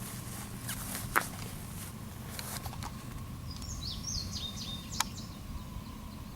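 Low, steady rumble of a distant train, with a faint steady tone above it. A small bird chirps a quick run of high notes a few seconds in, and two sharp clicks come about a second in and about five seconds in.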